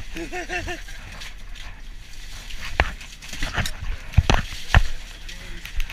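Iced fish being pulled by hand from a fishing boat's hold, with ice crunching and several sharp knocks of fish and ice: one about three seconds in, then a quick pair and a last one near the end. A brief run of four short squeaks comes near the start.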